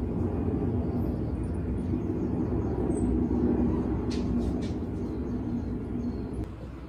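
Steady low rumble with a faint hum in it, a few soft clicks about four seconds in, and the rumble dropping away near the end.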